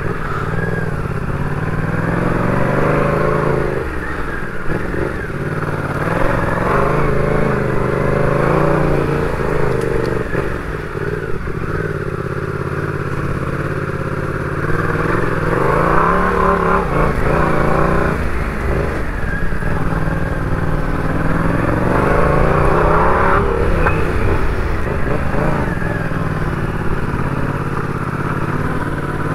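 Motorcycle engine running under the rider, its revs rising and falling again and again as the throttle opens and closes.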